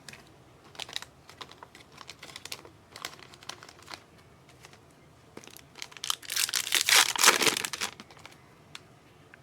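Trading cards and a foil pack wrapper being handled: light scattered clicks and crinkles, then about six seconds in a loud crinkling rip lasting about two seconds as a 2025 Upper Deck Goodwin Champions pack is torn open.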